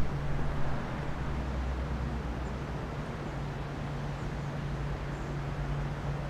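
Steady city street ambience: a low, even hum under the noise of distant traffic.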